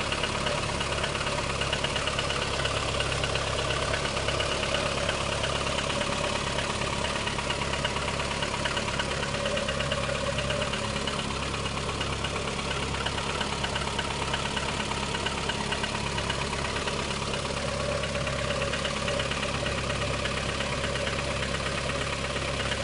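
Lada Kalina engine idling cold, running steadily with a fast, even knocking tick over the engine note: the knock the car makes when cold.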